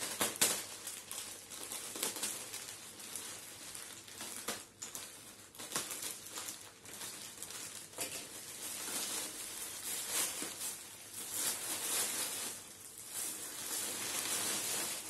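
Clear plastic courier bag crinkling and rustling as it is opened and handled by hand, with irregular sharp crackles.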